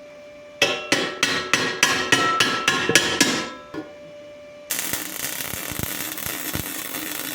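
A hammer strikes steel about ten times in quick succession, roughly three blows a second, each ringing briefly. About a second after the blows stop, a loud steady hiss starts.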